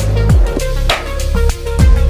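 Background music with a steady beat: deep bass-drum hits that drop in pitch, and a sharp snare hit about every second.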